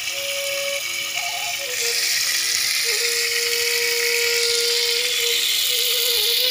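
Water running from a wall tap and splashing onto a concrete floor, a steady hiss that grows louder about two seconds in. A soft flute-like melody plays underneath.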